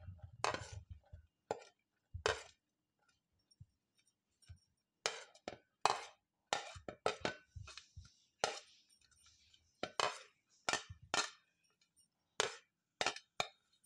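A metal spoon scraping and tapping against a plate and a glass bowl as chopped vegetables are pushed off into the bowl: an irregular run of short clinks and scrapes, with a brief lull a few seconds in.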